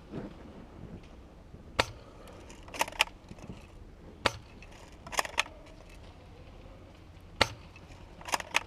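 Airsoft guns firing single shots: sharp, short cracks at irregular intervals, about nine in all, several in quick pairs.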